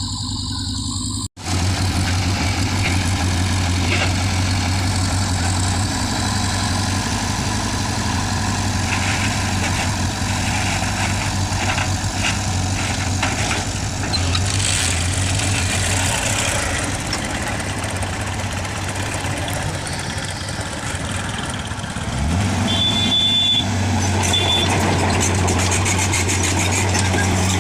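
Heavy diesel engine running steadily at idle, then picking up speed about 22 seconds in, with two short high beeps just after.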